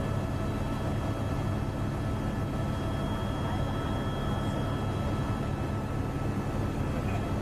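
Steady engine drone of the aircraft carrying the camera in flight: an even low rumble with a few faint steady whining tones above it.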